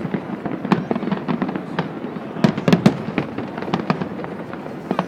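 Fireworks finale barrage: shells bursting in quick succession, a dense run of sharp cracks over a continuous low rumble. The cracks are thickest and loudest between about two and a half and three seconds in.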